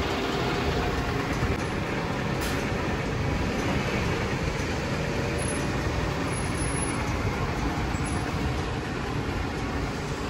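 Steady rumble of a heavy vehicle running close by, a bus or train, with a faint engine hum over it.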